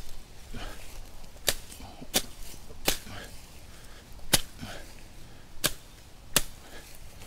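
Machete slashing through weeds and brush held aside with a forked stick, cutting low along the ground: six sharp cuts at an uneven pace.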